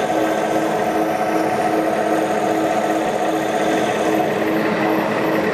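Gauge 1 model railcar running slowly along the track, its electric motor and gearing giving a steady hum.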